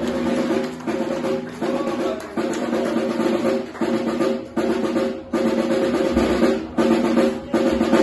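Live rock band playing: drums and guitars hitting the same chord in a stop-start rhythm, about every three-quarters of a second.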